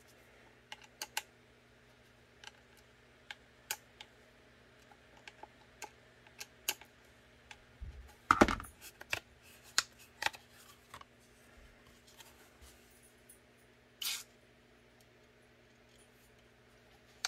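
Light clicks and taps of small holster hardware and tools being handled on a workbench, with a louder clatter about eight seconds in and a brief hiss about fourteen seconds in, over a faint steady hum.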